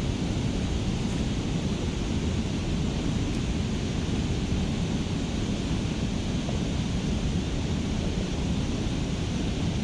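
Steady rushing noise of wind on the microphone and flowing river water, even throughout with no distinct events.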